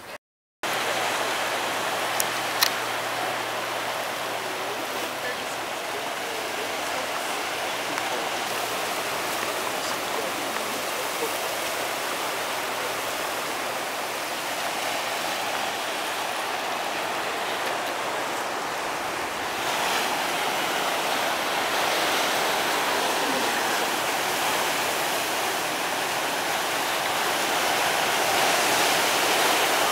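Ocean surf washing and breaking over rocky ledges: a steady rushing hiss that grows a little louder about two-thirds of the way through.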